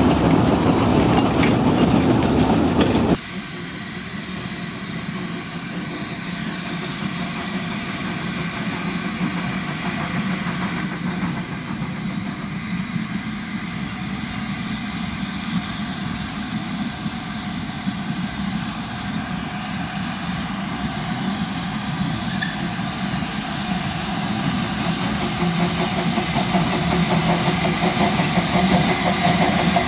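Narrow-gauge steam locomotive working a train of wagons, growing steadily louder as it approaches. The first three seconds are the louder sound of another steam locomotive passing, which cuts off abruptly.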